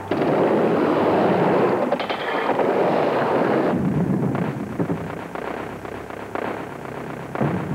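Skateboard riding a vert ramp: a loud, rough rattling of wheels and trucks on the ramp that starts suddenly, is strongest for about the first three and a half seconds, then carries on quieter.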